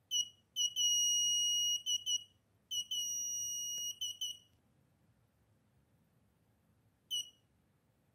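Piezo buzzer on an Arduino circuit beeping at one high pitch in a pattern of short and long beeps for about four and a half seconds, then one more short beep near the end. It is the machine's signal that all the practice questions have been answered.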